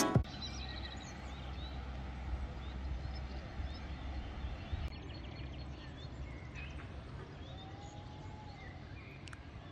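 Quiet outdoor ambience: a low steady rumble with faint, scattered bird chirps.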